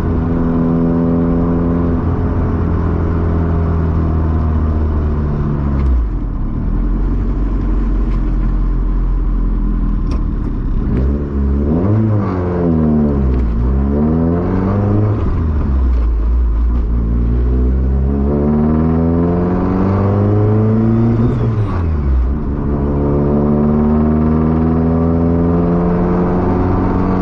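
Honda four-cylinder engine idling, then revved up and dropping back several times, each rise falling away sharply at its peak. The engine will not rev past about 4,000 rpm, a limit the owner blames on the ECU.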